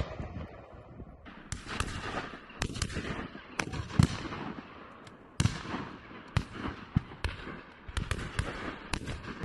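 Shotguns firing on a driven game shoot: an irregular run of more than a dozen shots from the line of guns, some much louder than others.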